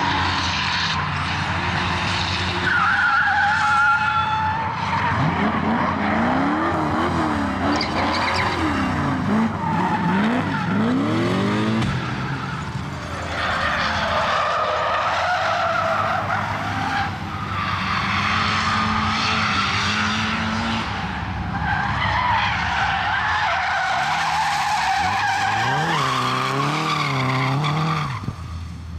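LS V8-swapped Nissan S13 drifting, its engine revving up and down with loud tyre skidding and squeal. The engine and tyre sound drops off suddenly near the end.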